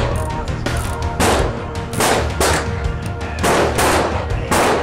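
Ruger Single-Six .22 rimfire revolver fired about six times at uneven intervals, each shot a sharp crack with a short echo. Background music with steady bass plays underneath.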